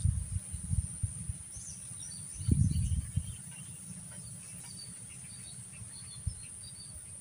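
Outdoor ambience: a steady high insect drone with scattered small bird chirps. Low rumbling runs underneath, loudest about two and a half seconds in.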